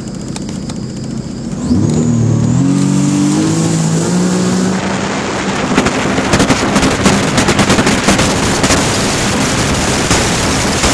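2014 Sea-Doo RXT-X aS personal watercraft's supercharged three-cylinder engine running steadily at low speed, then opened up at full throttle about two seconds in, its pitch rising quickly as it accelerates toward top speed. From about five seconds on, heavy wind and water noise with rapid crackling buffeting on the microphone covers the engine.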